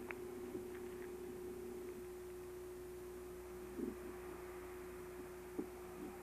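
A steady hum held at one pitch, with a faint low rumble and a few small clicks and knocks.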